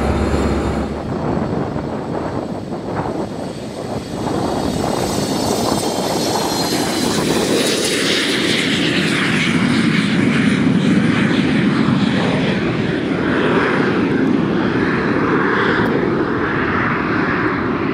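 Small corporate airplane taking off and passing: a high turbine whine falls in pitch over a few seconds, then a loud, steady rush of engine noise builds and holds as it climbs away.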